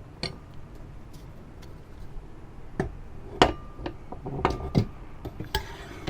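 Scattered clicks and knocks of parts being handled during setup of a wheel balancer. The loudest comes about three and a half seconds in and is followed by a brief ring, with another like it about a second later.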